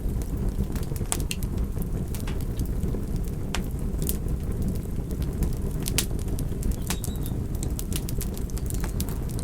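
Wood fire burning: a steady low rush of flames with sharp, irregular crackles and pops.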